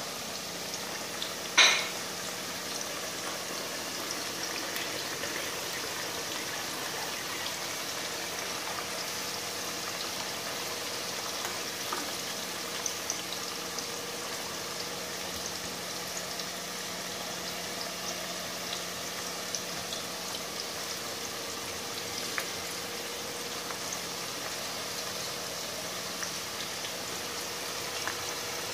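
Pale potato sticks deep-frying in hot oil in a kadhai: a steady bubbling sizzle with small crackles. One sharp knock sounds about a second and a half in.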